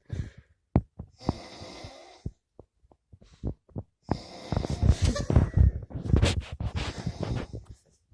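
A man snoring: short breathy sounds in the first half, then a long, loud, rattling snore lasting about four seconds in the second half.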